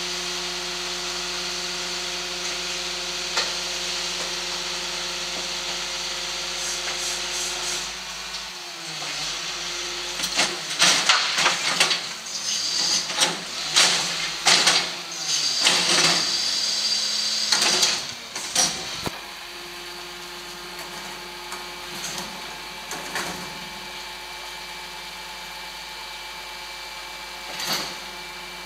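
Ford Trucks garbage truck with a Hidro-mak rear-loader body running steadily. About eight seconds in, a wheeled waste container is lifted and tipped into the hopper, and rubbish and the metal container clatter and bang for about ten seconds. The truck then settles back to a quieter steady run with a few knocks.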